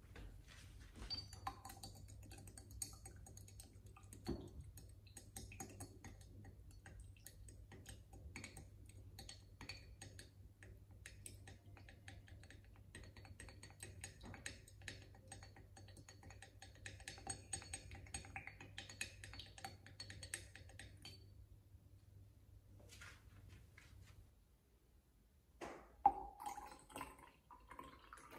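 Wooden spoon stirring sugar into hot water in a glass jar: a long run of small clicks and scrapes against the glass for about twenty seconds. Near the end, lemon juice is poured into the jar with a couple of louder clinks.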